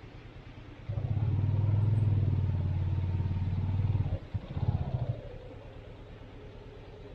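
Yamaha Fazer 250's single-cylinder engine idling, then revved hard as the motorcycle pulls away about a second in. The throttle comes off about four seconds in, with a few short blips, and the engine note then falls and fades as the bike rolls across the grass.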